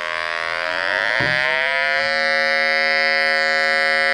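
The KT-10 magnetic susceptibility meter's scanner-mode audio tone, a steady electronic buzz. Its pitch rises over about a second as the meter is brought onto a rock sample, following the climbing susceptibility reading, then holds steady. A soft knock comes about a second in, as the meter meets the sample.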